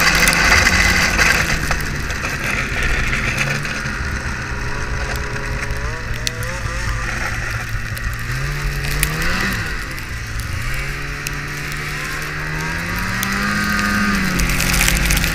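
Ski-Doo snowmobile engine running while riding, its pitch rising and falling with the throttle: a brief rev about nine seconds in and a slow climb in engine speed toward the end. Wind noise rushes over the microphone at the start.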